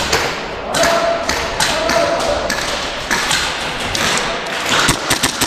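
Thumps and taps of a player moving on foot with gear through an airsoft field, with a quick run of airsoft gunfire clicks starting near the end.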